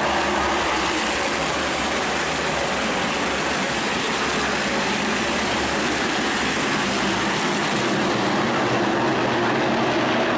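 A pack of NASCAR Whelen Modified race cars running at speed on the track, their V8 engines blending into a loud, steady, unbroken drone.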